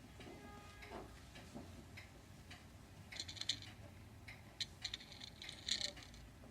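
Irregular light clicks and taps, coming in clusters about three seconds in and again around five seconds in.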